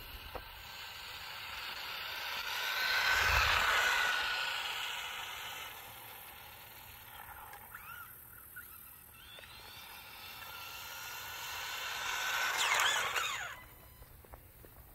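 ECX Torment 1/18 RC truck's 380-size brushed electric motor and drivetrain whining at full throttle on a NiMH battery, with tyre noise on asphalt. It builds to a pass at speed and fades away, then comes back louder and cuts off suddenly as the truck stops, about 13 seconds in.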